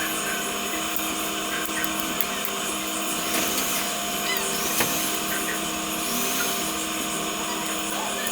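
A steady mechanical hum, like a small electric motor or fan, with a few faint clicks and scrapes of work on parts.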